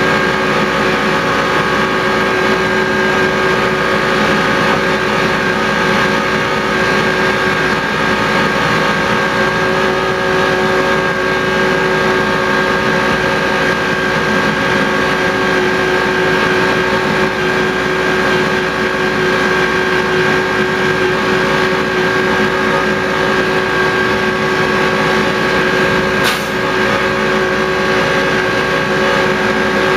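Miniature railway locomotive's engine running steadily under way, heard from the cab. One sharp click near the end.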